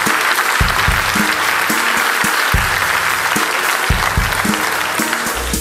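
Large audience applauding, with music playing underneath; the applause stops right at the end.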